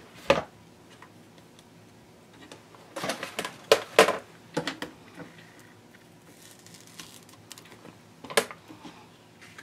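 Hard plastic cutting plates clacking and tapping as they are lifted apart and set down, in a few sharp clicks, a cluster of them three to four seconds in and another near the end.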